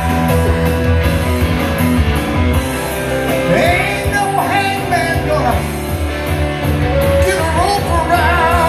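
Live music: a hollow-body electric guitar played through an amplifier, with a man's singing voice coming in about three and a half seconds in.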